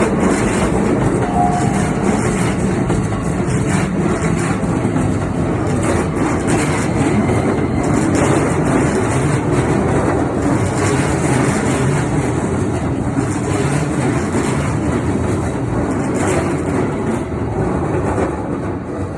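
A Keikyu 2100-series electric train passing close by: a loud, steady run of wheel and rail noise with a continuous clatter of wheels over the rails, easing slightly near the end.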